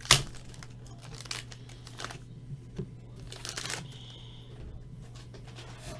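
A trading card pack's wrapper being torn open and crinkled, in a few short rustling bursts. The first, right at the start, is the loudest.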